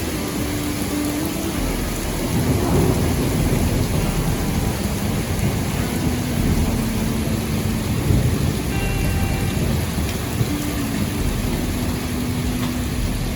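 Heavy rain pouring down in a thunderstorm, a dense steady hiss with low rumbling that swells about two seconds in and again near eight seconds.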